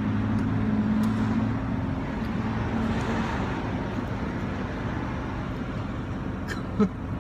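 Street traffic: a vehicle engine hums steadily and fades after about two seconds, while the road noise swells as a vehicle passes about three seconds in.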